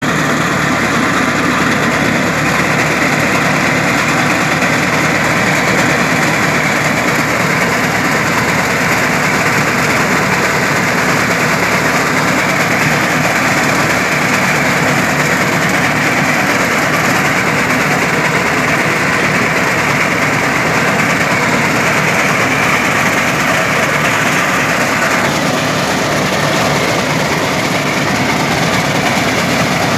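Tractor engine running steadily while a front-mounted reaper cuts a standing crop, a loud continuous mechanical drone that eases slightly about 25 seconds in.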